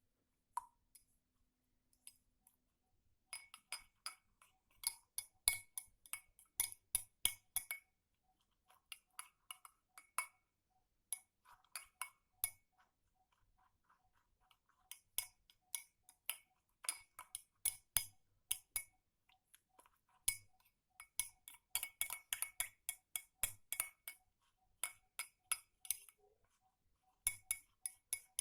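Spoon stirring a drink in a cup, clinking against the sides in quick runs of several strikes a second, with a short pause near the start and another about midway.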